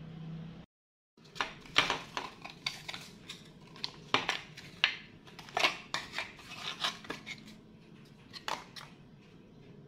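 Glass food container being handled on a table: slid out of its cardboard sleeve and its lid lifted off, a quick run of clinks, knocks and cardboard rustling, with a last couple of clinks near the end.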